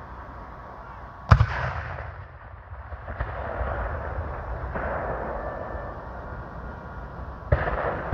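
Black-powder field cannon firing: a loud blast about a second in with a rolling echo, and a second shot near the end.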